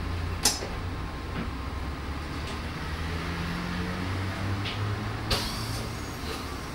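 Interior of a 1961 Esslingen GT4 articulated tram running along the track: a steady low rumble with electric motor hum. There are two sharp knocks, about half a second in and again near five seconds.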